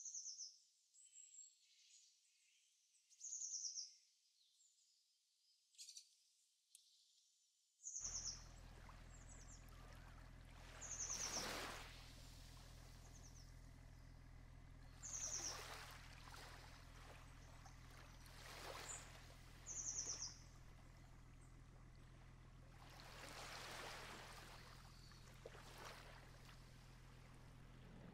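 Faint birdsong from a nature-sounds background track: short, high chirps and trills every second or two. From about eight seconds in, a low steady hum and a soft rushing, stream-like noise join the birds, swelling a few times.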